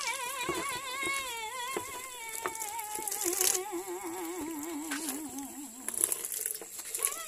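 A voice humming a slow, drawn-out tune with a wavering pitch that drifts lower and stops about six seconds in. Underneath are faint tearing and crackling sounds of wet feathers being pulled from a scalded chicken.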